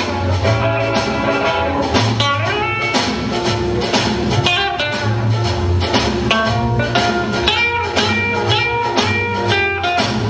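Upbeat boogie-woogie dance music with guitar over a steady, pulsing bass beat.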